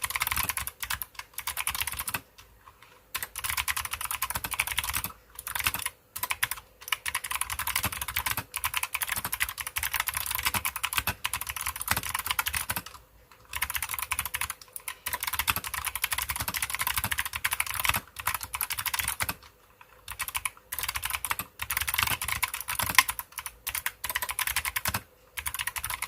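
Fast continuous typing on a GEEKSTAR GK510 mechanical keyboard with Kailh optical clicky switches: crisp, high clicks in quick runs, broken by brief pauses.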